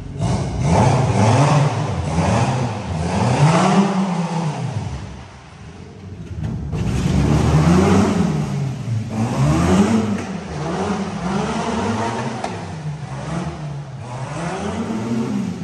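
The twin-engine Honda Civic's engines revving up and down again and again, easing off briefly about five seconds in.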